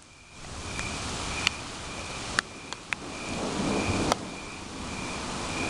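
Steady rush of rain and wind in a storm, with a few sharp taps scattered through it and a faint high chirp repeating about twice a second.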